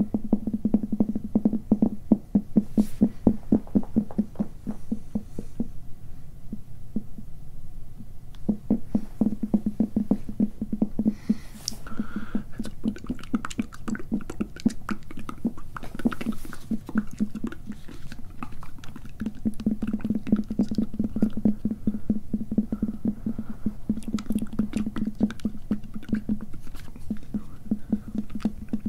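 Close-up scratching on a microphone's mesh cover: many quick rasping strokes, dull and low, with a few short pauses.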